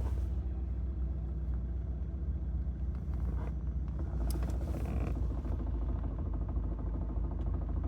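Lada Granta idling steadily with a rattling noise from the gearbox area. The owner can't tell whether it comes from the gearbox or the clutch release bearing.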